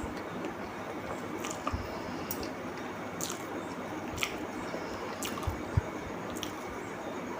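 Close-miked eating: wet chewing and mouth smacks, a short crackle every second or so, over a steady background hiss, with a few soft low knocks.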